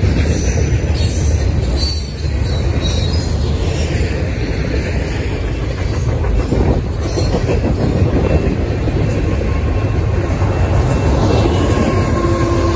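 Double-stack container train rolling past at close range: steady rumble and clatter of steel wheels on rail with faint wheel squeal. Near the end, a mid-train CN GE Evolution-series diesel locomotive arrives, adding a steady engine drone.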